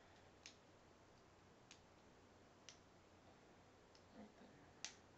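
Faint clicks of K'nex plastic pieces being snapped together: four separate sharp clicks, the last, near the end, the loudest.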